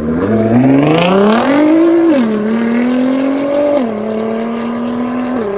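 A supercar's engine accelerating hard away, its revs climbing and then dropping sharply at three upshifts about a second and a half apart.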